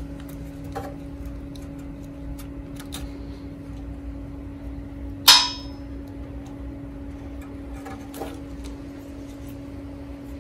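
Light clicks and taps of hands working low-voltage wires and plastic wire nuts, with one sharp click about five seconds in, over a steady low hum.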